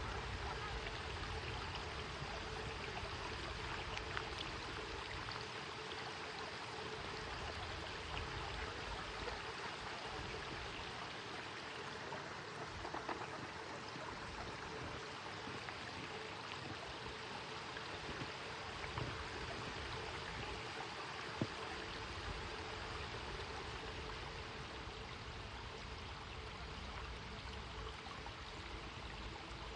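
Running water of a stream flowing steadily, with a few faint ticks and splashes.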